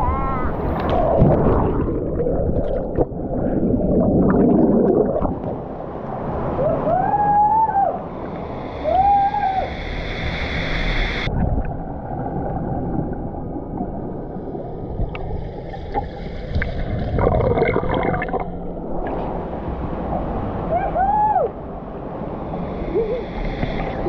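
Churning waterfall water heard underwater through the camera: a dense, muffled rush. Several short, muffled, voice-like calls rise and fall in pitch over it.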